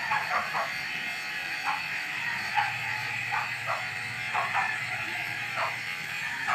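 Electric pet clippers buzzing steadily as they are run over a Yorkshire terrier's coat, with a dozen or so short chirp-like blips at uneven intervals over the hum.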